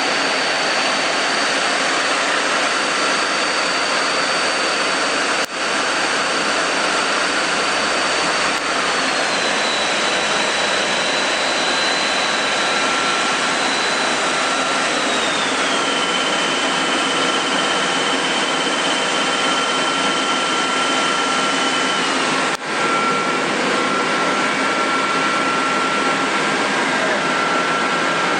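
Amera Seiki T415 CNC lathe's spindle running at speed: a steady whir with a high whine that drops in pitch in two steps, about a third and about halfway in, as the spindle speed is stepped down.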